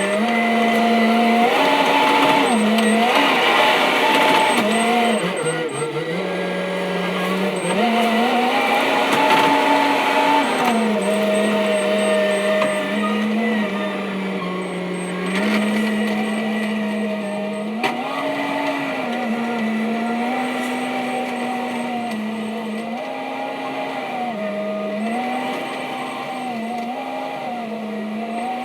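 Kubota SVL65-2 compact track loader running under work, its engine and hydraulics giving a steady droning note that steps up and down in pitch every couple of seconds as the load changes.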